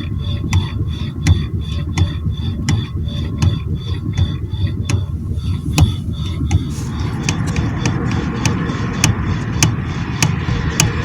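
Ford Fiesta steering shaft universal joint (cardan) knocking with a ringing "tsok", about three knocks a second, as the steering wheel is rocked quickly left and right with the car standing still. The knock comes from play in the joint's cross. A steady rushing noise joins about seven seconds in.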